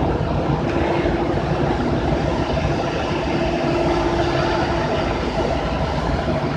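Sawdust charcoal making machine running: a steady mechanical din with a constant hum.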